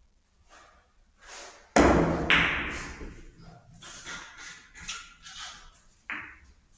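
A loud thump about two seconds in, followed by a few seconds of scattered knocks and rustling.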